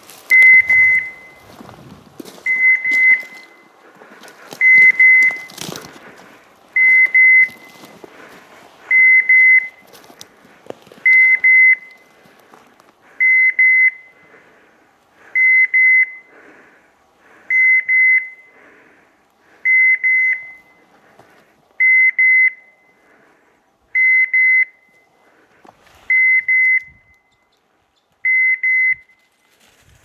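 Hunting dog's beeper collar in point mode, giving a high double beep about every two seconds: the signal that the pointer has stopped and is standing on point. Rustling through dry brush in the first few seconds.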